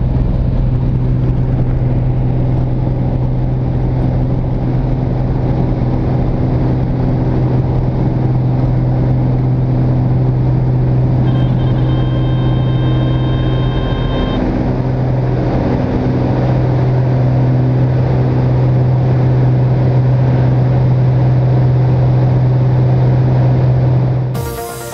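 Piston engine of a single-engine high-wing light aircraft at full power for take-off, heard from inside the cabin as a loud steady drone. A steady high tone sounds for about three seconds midway, and music cuts in just before the end.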